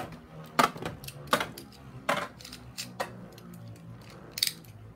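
A Beyblade Burst top spinning with a low steady whir in a plastic stadium, with a string of sharp plastic clicks and taps from Beyblade parts, roughly one every half second to a second and a quick pair near the end.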